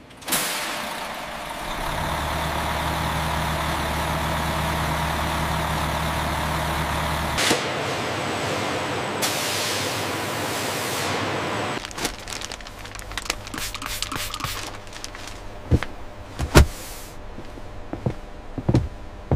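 Assembly-line equipment: a loud hiss starts suddenly with a low steady hum under it for several seconds, then eases off about twelve seconds in, followed by scattered sharp knocks and clicks.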